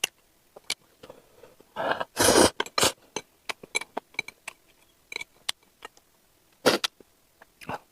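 Close-miked eating: short slurps of noodles, the longest about two seconds in and two more near the end, amid scattered small clicks of chewing and chopsticks.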